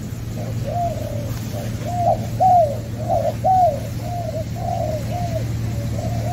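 Spotted doves cooing: a long run of short, arched coos, about two a second, loudest around the middle. A steady low hum runs underneath.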